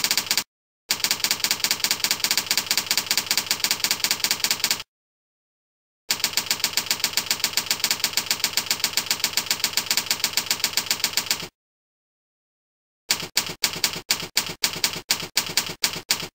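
Typewriter sound effect for text typing out on a slide: fast runs of typewriter key clacks in three bursts of a few seconds each, split by dead silence. Near the end come slower single key strikes, about three a second.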